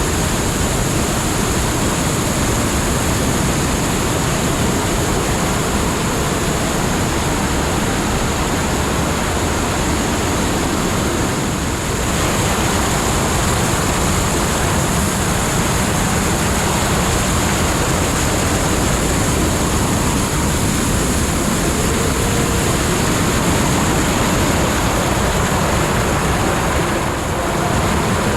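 Steady rush of water, loud and unbroken.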